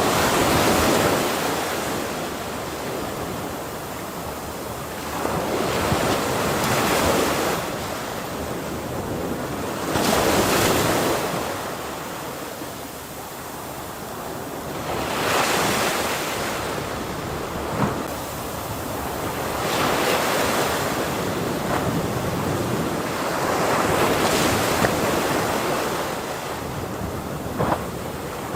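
Ocean waves breaking and washing onto a shore, one surge every four to five seconds, each swelling into a rush of surf and then falling back.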